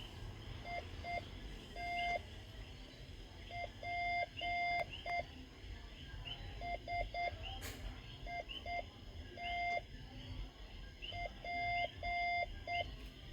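Morse code practice tones played back through a speaker: a single steady-pitched beep keyed on and off in short dots and longer dashes, sent in groups with pauses between the letters.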